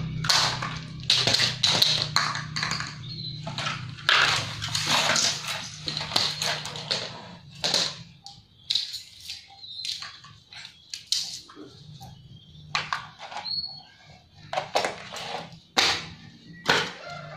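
Plastic toys clattering on a tiled floor: a plastic basket, cups and plates being tossed, dropped and knocked together in irregular knocks and rattles, with a few short high squeaks.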